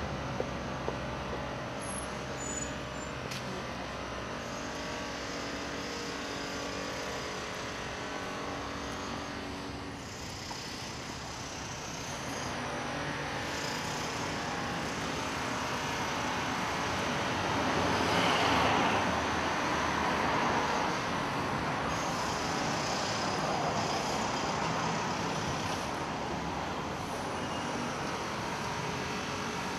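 City street traffic: a steady wash of cars on the road, with one vehicle growing louder and passing about two-thirds of the way through.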